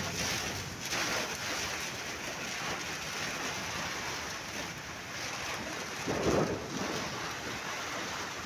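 Heavy rain pouring in a windy thunderstorm, a steady hiss of rain; a louder low rumble swells about six seconds in.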